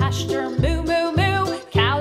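Background music: a light tune with a bass line stepping about twice a second under a wavering melody.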